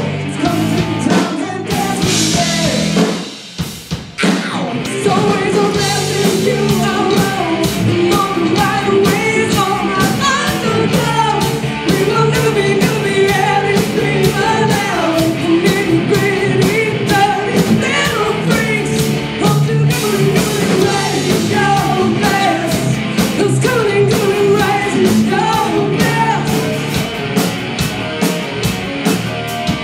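Rock band playing loud, with a singer over electric guitar and drums. The music drops away briefly about three seconds in, then carries on.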